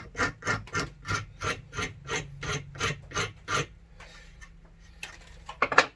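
Rat-tail file rasping back and forth on laminated plywood in quick, regular strokes, about five a second, that stop after three and a half seconds. A couple more strokes come near the end.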